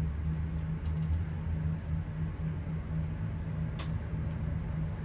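Steady low drone of a car's engine and road noise, as heard inside the cabin while driving, with one faint click a little before the end.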